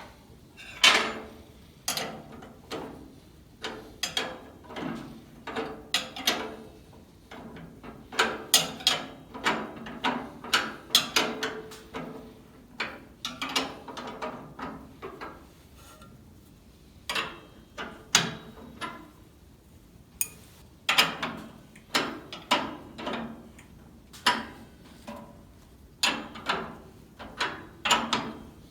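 Irregular metallic clicks, clanks and knocks of hand tools and hardware as the motor is fitted to a Delta contractor table saw. They come in quick clusters with short pauses between them, some with a brief metallic ring.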